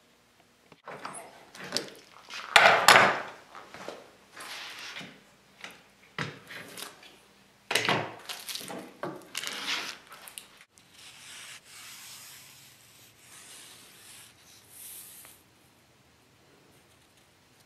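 Pieces of wood being rubbed and scraped against each other or a work surface in irregular strokes, loudest a few seconds in, with lighter rubbing in the second half.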